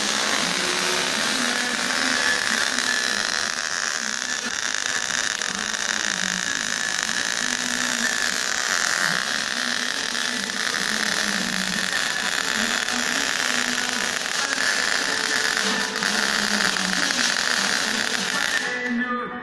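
Electric welder's arc crackling steadily while steel sheet is welded onto a truck muffler, starting and stopping abruptly with the trigger.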